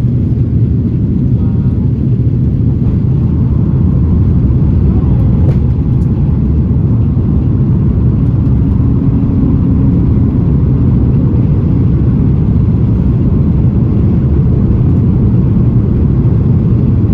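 Steady low rumble inside the cabin of an Airbus A330-900neo descending to land: the noise of its Rolls-Royce Trent 7000 engines and the airflow over the fuselage.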